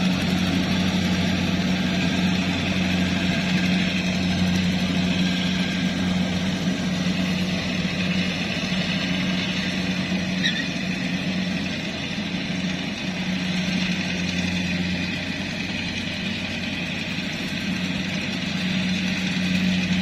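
Rice combine harvester's diesel engine running steadily while it cuts the standing crop, a constant deep hum.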